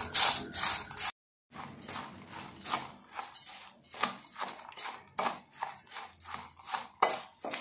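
A spoon stirring and tossing masala puffed rice in a stainless steel bowl: a dry rustling scrape with each stroke, two or three strokes a second. The strokes are louder for about the first second, drop out briefly, then go on more softly.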